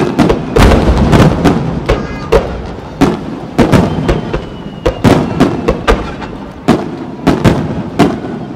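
Aerial firework shells bursting in a rapid barrage: about twenty-five sharp bangs, irregularly spaced and often only a fraction of a second apart, each trailing off in an echo.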